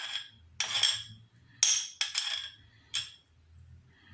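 A kitchen utensil knocking against a ringing dish: about five sharp clinks spread over three seconds, the last one fainter.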